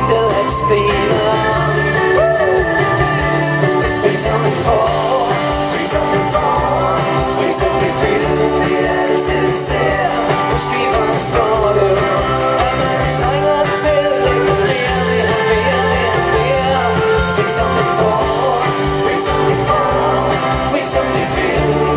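Live pop-rock band playing with a steady beat, the melody carried on without clear sung words.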